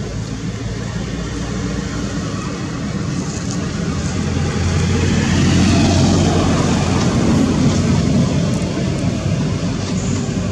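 A motor vehicle passing by: a noisy rush with a low hum that swells to its loudest about six seconds in and then fades a little.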